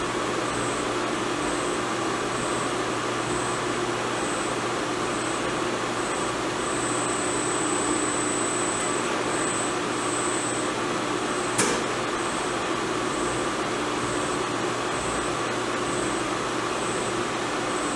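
CNC vertical milling machine running a chip-breaking tapping cycle, cutting M8 threads into hot-rolled steel. A steady machine noise runs throughout, with a high whine that cuts in and out about twice a second and one sharp click about two-thirds of the way through.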